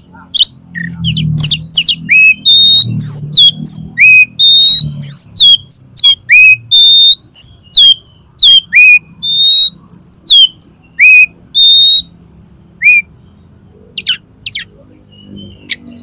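Oriental magpie-robin (kacer) singing: a rapid, loud run of clear whistled notes and sharp downslurred calls that breaks off about thirteen seconds in, followed by a couple of short sharp notes.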